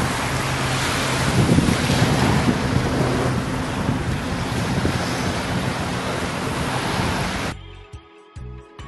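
Wind blowing on the microphone over breaking surf, a steady rushing noise that cuts off suddenly near the end, where quiet music begins.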